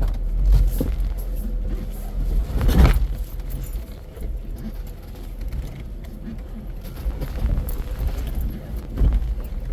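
Jeep crawling over rocks: a low engine rumble with scattered knocks and clunks from the tyres and body on rock, the loudest one a little before three seconds in, and loose items rattling.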